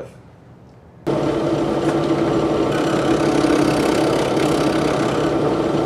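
Drill press spinning a 120-grit sanding drum, shaping the curved edge of a black walnut leg blank: a steady motor hum with sanding hiss. It starts abruptly about a second in and dies away near the end.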